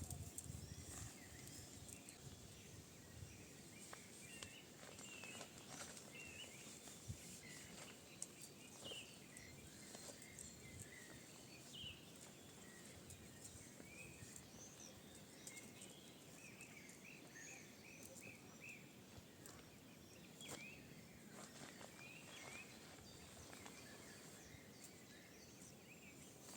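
Faint birdsong: many short chirps and whistles scattered over a quiet outdoor background, with a few soft clicks.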